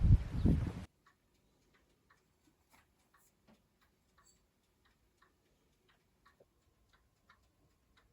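Faint ticking of a clock, about two ticks a second, after an abrupt cut about a second in from birdsong and a few loud low thumps.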